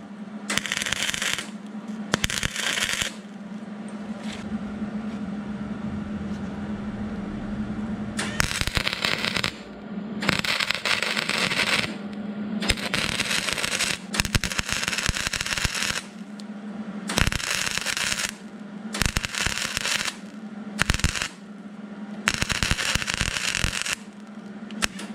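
Flux-core MIG welder laying short stitch welds on thin car-body sheet steel: about ten crackling arc bursts of one to two seconds each, with brief pauses between them and one longer pause a few seconds in, over a steady low hum. The short on-off bursts are the weld-a-second, stop, weld-again technique used to keep thin metal from overheating and warping.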